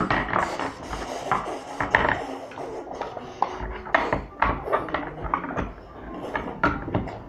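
Large plastic toy building blocks clacking and knocking together as they are picked up, handled and pressed onto a stack, an irregular run of sharp clicks.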